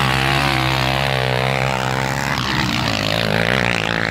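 Sport quad (ATV) engines running hard at high revs as the machines climb the dirt hill. The engine note is steady for the first couple of seconds, then shifts and wavers in pitch.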